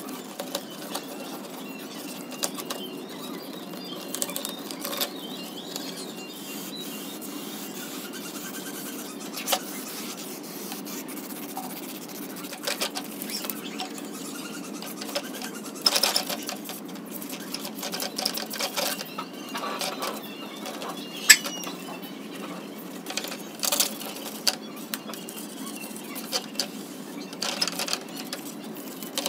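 Small white cleaning sponge scrubbing caked dirt off a disc player's sheet-metal cover and plastic front panel: irregular rubbing and scraping strokes with occasional sharp taps, over a steady low hum.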